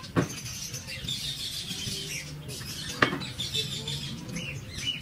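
Birds chirping, with two sharp knocks: one just after the start and one about three seconds in.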